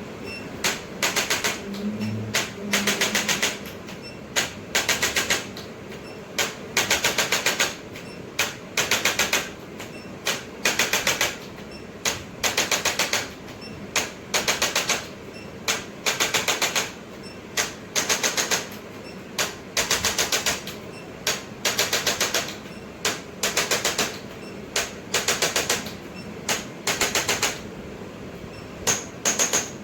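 A handheld percussion device firing in short bursts of rapid clicking, about one burst a second, each burst well under a second long, while it is worked over the body.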